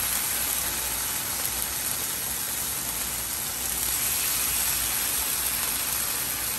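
Pork bacon strips sizzling in a frying pan as they start to cook: a steady, even hiss.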